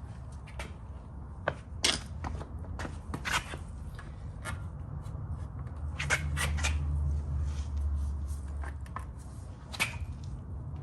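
Irregular metallic clicks and clinks of hand tools working on the final drive's mounting bolts, over a low rumble.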